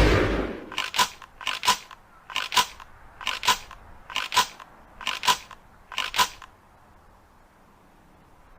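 Tail of a shotgun blast dying away, then seven sharp metallic double clicks about a second apart from an Ithaca Model 37 pump-action shotgun being handled between shots.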